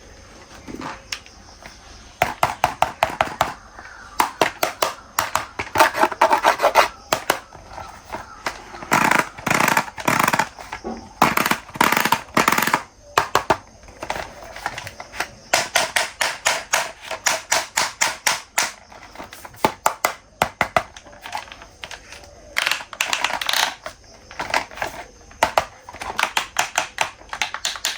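Bursts of rapid clicking and tapping of hard plastic toys being handled, in clusters of quick clicks with short pauses between.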